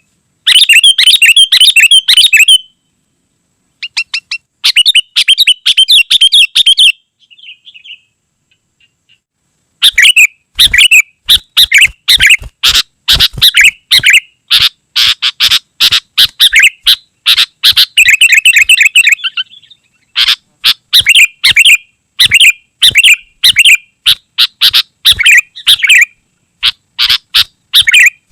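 Sooty-headed bulbul (kutilang) calling in loud, rapid, tightly packed runs of chirping notes. There is a short break about three seconds in and a longer break of about three seconds around the eighth second.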